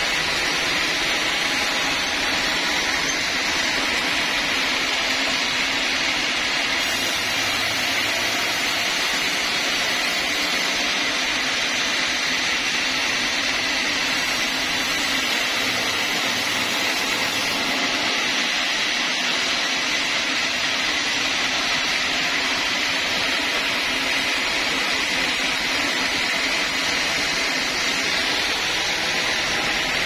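Band sawmill running with a steady, even whir that does not break or change.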